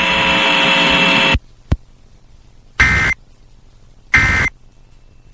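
A steady buzz with many overtones cuts off about a second and a half in. Then come two short screeching data bursts about a second and a half apart: the Emergency Alert System end-of-message code, marking the end of the flash flood warning broadcast.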